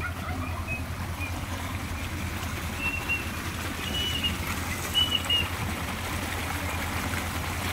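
Running water trickling over a steady low hum, with a few short high bird chirps.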